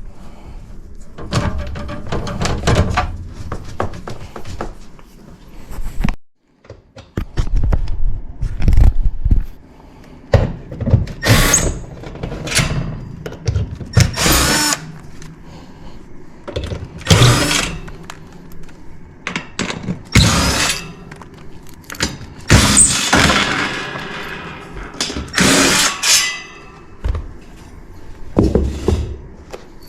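Power drill running in short bursts of about a second, six or so times, with knocks and clatter between them, as screws are driven out during removal of an old air handler.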